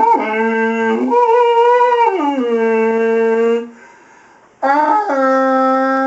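A man making a long, drawn-out droning tone into a cardboard paper towel tube held to his mouth. The pitch slides down about two seconds in. The tone breaks off for about a second past the middle, then starts again.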